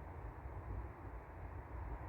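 Steady low outdoor background rumble with a faint hiss, no distinct events.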